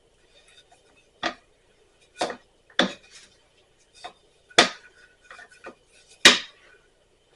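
Kitchen utensils knocked and set down on a counter: a string of sharp knocks and clatters, five louder ones among lighter taps, while tortilla dough is being prepared.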